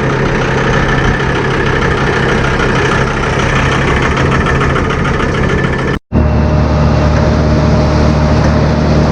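Farm tractor engine running steadily. About six seconds in the sound breaks off for a moment and comes back with a deeper, steadier engine note.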